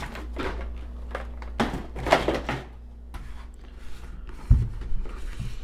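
Camera packaging being handled on a table: several short rustles of box and wrapping in the first half, then a dull thud about four and a half seconds in, over a steady low electrical hum.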